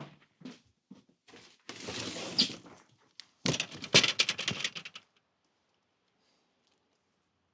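Quick, evenly spaced footsteps, then a short rushing scrape and a dense burst of clattering as boxes and gear are handled. It all cuts off abruptly about five seconds in, leaving near silence.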